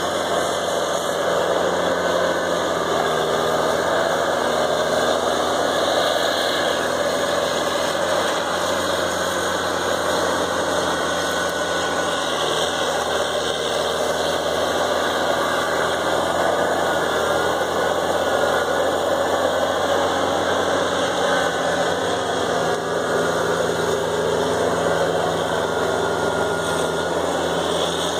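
Diesel engines of a feller-buncher and a skidder running steadily, a constant low engine drone with no breaks.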